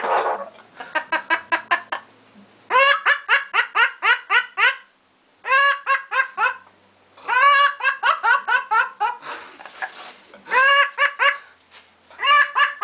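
Pet parrot calling in quick runs of repeated squawking notes, about five notes a second, several runs broken by short pauses.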